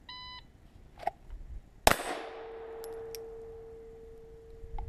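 A shot timer beeps once as the start signal, then, a little under two seconds later, a single shot from a Glock 17 pistol drawn from the holster. A struck steel target rings on with one steady tone that slowly fades.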